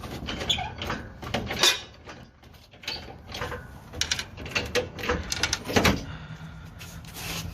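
Lifting gear being worked to raise a car engine: irregular squeaks, creaks and metal knocks, coming quicker for a couple of seconds past the middle.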